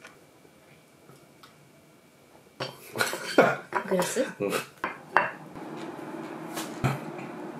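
Chopsticks and tableware clicking and knocking against a plate as noodles are picked up, starting after a couple of quiet seconds. A steady low hum sets in about halfway through.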